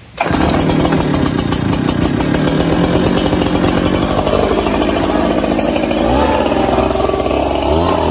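Echo backpack leaf blower's two-stroke engine starting with a sudden burst and then running loud and steady. Near the end, rising and falling sweeping tones join it.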